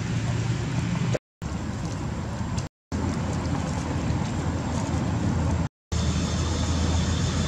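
Steady low outdoor rumble, most likely wind on the microphone or distant traffic, broken three times by brief gaps of total silence where the footage is cut.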